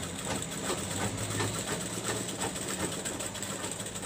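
Sewing machine running steadily, its needle stitching a seam through layered fabric, with a quick regular ticking over a low hum.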